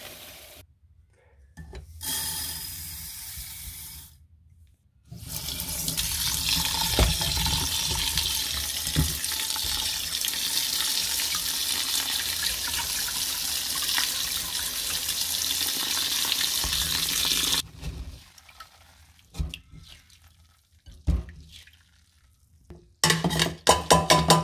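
Kitchen tap running steadily onto red lentils in a mesh sieve for about twelve seconds, then shut off. Near the end comes a quick clattering rattle as the rinsed lentils are tipped from the sieve into a steel saucepan.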